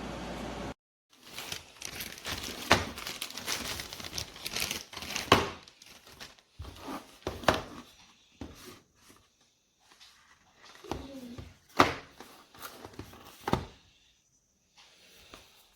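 Crinkling and rustling handling noise with scattered sharp clicks and knocks, in the manner of plastic or paper packaging being handled. A steady hiss cuts off about a second in, and the crinkling dies away near the end.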